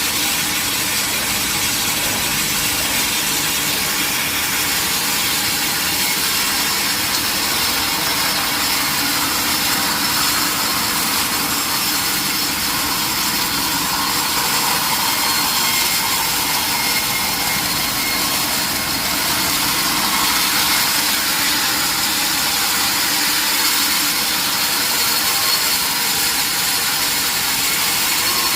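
Sawmill saw running steadily through a large mahogany log, a continuous loud hiss of blade cutting wood over the running machinery.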